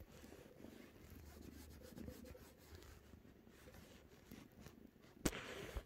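Persian kitten purring faintly and steadily, with soft rustling close to the microphone. About five seconds in there is one sharp knock, the loudest sound, followed by a brief rustle.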